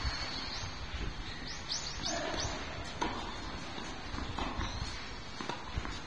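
Outdoor ambience with a bird chirping: a quick run of short rising-and-falling chirps about a second and a half in. A few faint knocks sound now and then.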